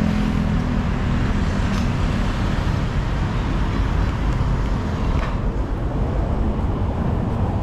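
Steady outdoor street noise from road traffic, heavy in the low end.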